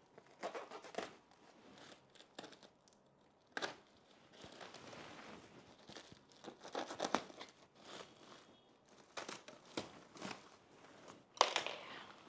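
Packing tape being torn off a package and the packaging crinkling as it is opened, in irregular rasps and rustles, with the sharpest tear near the end.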